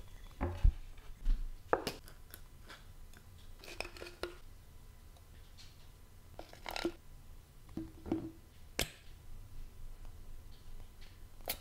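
A wooden cutting board set down on a counter with a couple of heavy thuds, then scattered light clinks and clicks as a long metal spoon, a jar and a squeeze bottle are handled over a glass mixing bowl.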